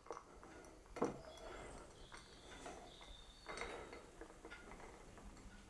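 Shaken cold brew being poured from a steel cocktail shaker into a glass: a faint trickle of liquid, with a single light click about a second in.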